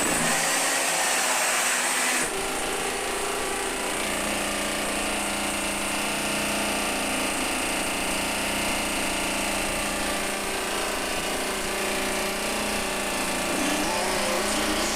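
A power tool running steadily, its sound changing abruptly about two seconds in.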